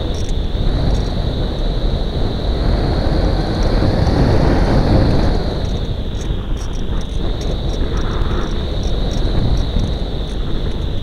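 Air rushing over the onboard camera of a Phoenix 2000 RC glider in flight, a dense wind rush that eases slightly about halfway through, with a steady high-pitched whine underneath.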